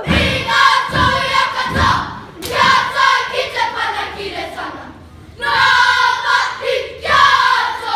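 A kapa haka group chanting a haka in unison, shouted phrases with a short break about halfway through. Heavy thumps of hands slapping bodies and feet stamping mark the beat in the first two seconds.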